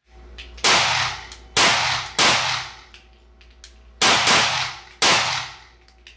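CZ P-07 9 mm Luger pistol fired five times at an indoor range: three shots about a second apart, a pause of nearly two seconds, then two more a second apart, each shot trailing off over about half a second in the room.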